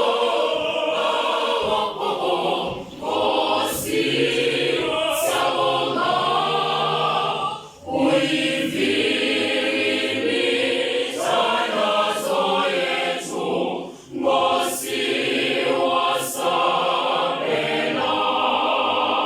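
A school choir of many voices singing together in harmony, with two short breaks about eight and fourteen seconds in.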